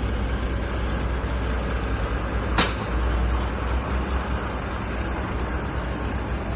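Boat under way: a steady low engine rumble under a constant rush of wind and water, with one sharp click about two and a half seconds in.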